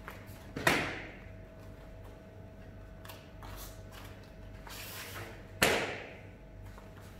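Two sharp hand slaps about five seconds apart, each ringing briefly in a large room, as the martial-arts salute is made. Fainter rustling of gi uniforms and feet on the mats comes in between.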